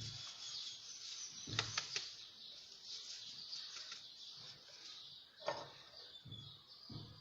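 Ground dried herbs and black seed being shaken through a hand sieve: a faint steady hiss, with a few light knocks.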